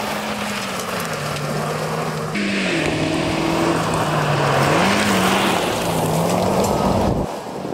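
Suzuki Jimny's 1.5-litre four-cylinder petrol engine pulling under load, its note dipping and rising with the throttle, over the crunch of tyres on loose gravel. The sound changes suddenly a little over two seconds in and drops away near the end.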